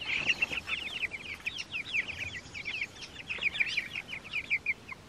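A flock of young Cornish cross meat chicks peeping nonstop, many short high peeps overlapping one another.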